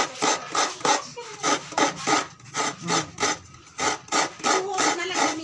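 Coconut flesh being scraped by hand on a coconut grater: a steady rhythm of rasping strokes, about four a second.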